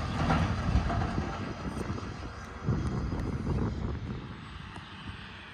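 A heavy truck's engine and tyre rumble, fading steadily as it drives away.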